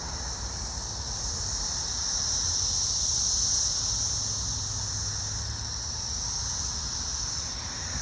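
Brood X periodical cicadas in chorus: a steady high-pitched drone that swells louder and eases off in slow waves.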